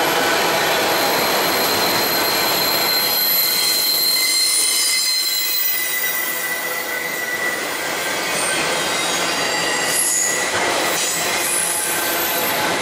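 Freight train of autorack cars rolling past close by, a steady rumble and rattle of steel wheels on rail. Thin high-pitched squeals come and go over it, one higher for the first half and a lower one later.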